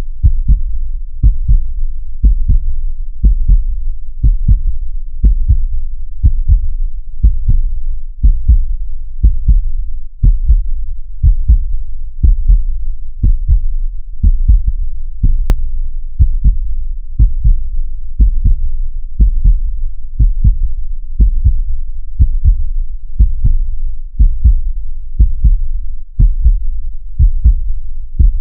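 Human heartbeat at a normal, regular rhythm: deep double thumps (lub-dub) repeating evenly at about one beat a second.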